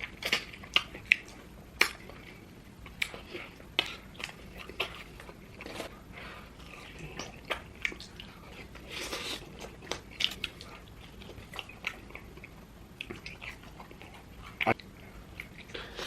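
Close-miked eating: a person biting and chewing a big mouthful, with irregular wet mouth clicks and smacks.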